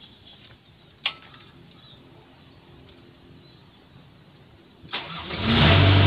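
Komatsu PC60 excavator's diesel engine starting: after a sharp click about a second in and another just before five seconds, the engine cranks, catches and settles into a steady loud idle near the end.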